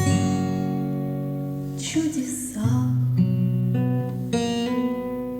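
Acoustic guitar playing the song's closing bars: a strummed chord, another about two seconds in, a few picked notes, then a final chord left to ring and fade.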